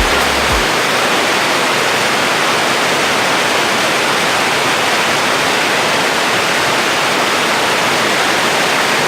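A waterfall, its falling water rushing steadily with an even, unbroken hiss.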